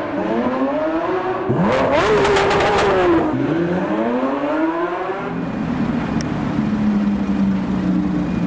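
Lamborghini Aventador SVJ Roadster's naturally aspirated V12 being revved: a short blip, then a sharp climb to the loudest rev about a second and a half in with a rapid crackle at the peak. The revs fall away, and after about five seconds it settles to a steady idle.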